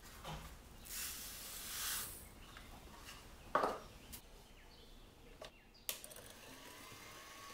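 Granulated sugar poured onto egg yolks in a glass bowl, a soft hiss, followed by a single sharp knock about three and a half seconds in.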